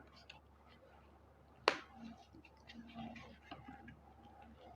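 Packaging being handled and unwrapped: faint scattered light ticks and rustles, with one sharp snap a little under two seconds in.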